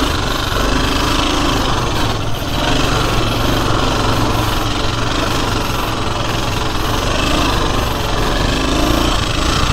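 Dirt bike's engine running steadily, a rapid, even chugging as the bike is ridden slowly over a rutted mud track.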